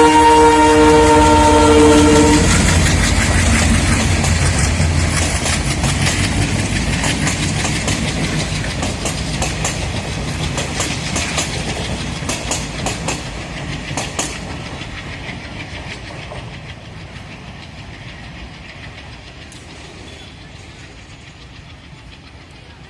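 ALCO diesel locomotive's horn sounding and cutting off about two seconds in, then the locomotive's engine chugging and the coaches clattering over rail joints. The whole sound grows steadily fainter toward the end.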